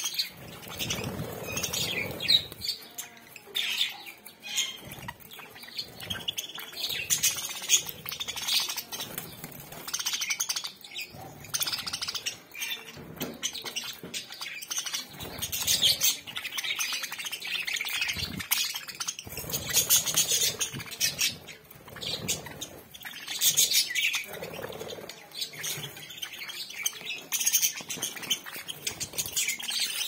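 A flock of budgerigars chirping and chattering, many high calls overlapping without a break.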